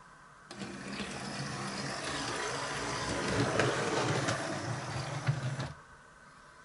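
Train-Tech motion-sensing sound unit in a model railway wagon playing locomotive sound effects. It kicks in about half a second in and cuts off abruptly about a second before the end.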